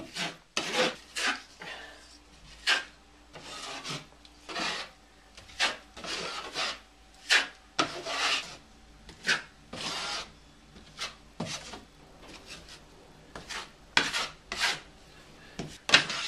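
Drywall taping knife spreading and scraping joint compound over fiberglass mesh tape on sheetrock: a run of short scraping strokes, about one or two a second, some sharper and louder than others.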